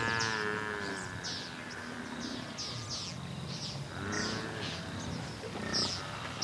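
African buffalo calling: a long drawn-out bleating call that slides down and fades in the first second, and a shorter one about four seconds in, over repeated short high chirps.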